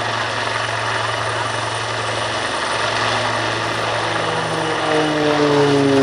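Aircraft engine noise, a steady hum, with tones sliding down in pitch and growing louder over the last second or so as the aircraft passes.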